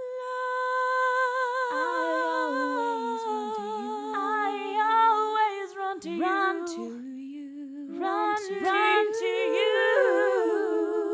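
A cappella female voices, one woman multitracked into layered harmony, singing wordless sustained chords with vibrato. They come in suddenly after a short silence and move slowly from chord to chord.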